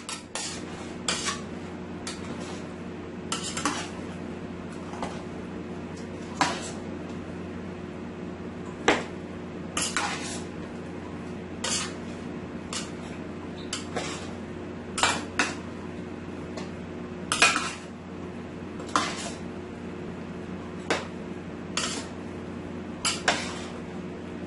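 A spoon tossing cubed eggplant, potatoes and chicken in a large stainless steel pot: irregular clinks and knocks of the spoon against the pot, about one every second or two, over a steady low hum.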